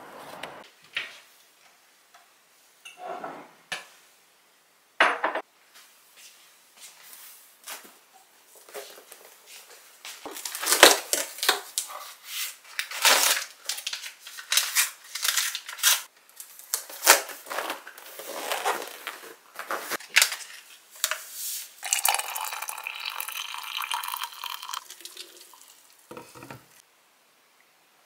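Ceramic mug and spoon clinking and clattering in a long run of quick knocks while hot cocoa is made, followed by a few seconds of steady noise.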